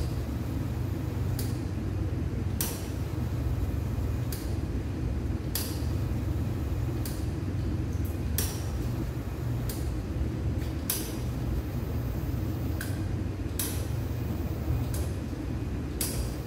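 A steady low mechanical hum, with about a dozen short, sharp clicks and taps scattered irregularly over it.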